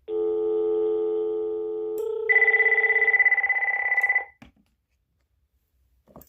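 A steady telephone dial tone sounds for about two seconds, then a high electronic phone ringer trills rapidly for about two seconds and stops suddenly. A couple of faint clicks follow.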